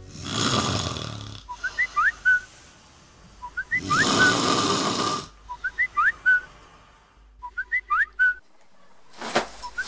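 A person asleep and snoring: two long, rasping snores, with short whistled chirps on the out-breath repeating about every two seconds, in the exaggerated manner of a comic snore.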